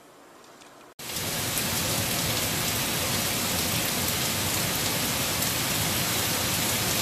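Rain falling, a loud, steady hiss that cuts in abruptly about a second in after a stretch of faint noise.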